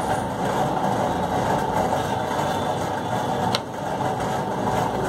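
Steady background hum and rumble, with one sharp click about three and a half seconds in as an oil pastel is picked out of its plastic tray.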